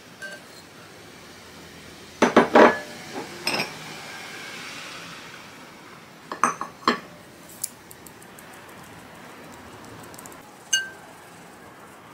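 Clinks and knocks of a stainless mesh sieve and small ceramic bowls against a glass mixing bowl as flour and matcha powder are tipped in and sifted. The loudest clusters come about two seconds in and again around six to seven seconds, with single clinks later and a faint hiss of sifting powder between.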